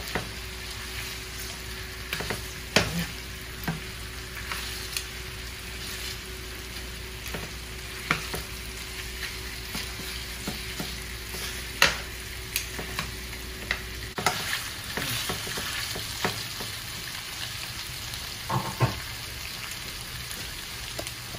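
Floured beef short ribs sizzling in hot oil in a frying pan as they brown. Metal tongs click against the pan now and then as the pieces are turned.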